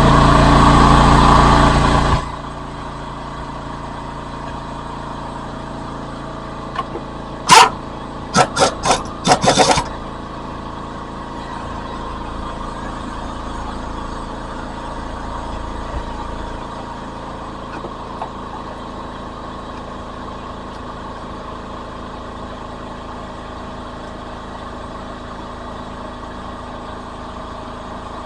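A power wrench running hard for about two seconds, then four short bursts about eight seconds later, as the bolts of a car's transmission engine mount are loosened. A steady mechanical hum runs underneath throughout.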